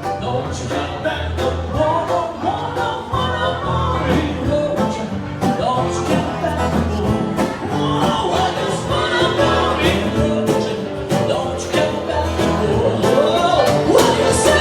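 Music with a singing voice over a steady beat and bass.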